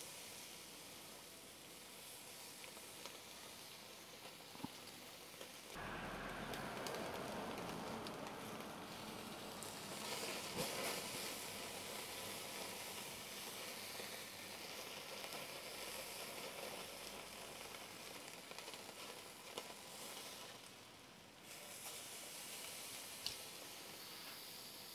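Beef Denver cut sizzling on a gas grill's infrared sear burner during its final high-heat sear, a steady hiss that gets louder about six seconds in. A few light clicks of the steel tongs turning the meat.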